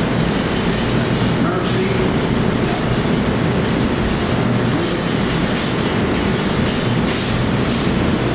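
Loud, steady arcade din: the mixed rumble and clatter of surrounding game machines.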